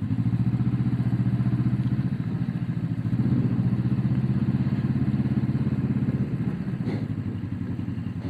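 Motorcycle engine running steadily while riding, with a fast, even pulsing note; it gets slightly louder about three seconds in.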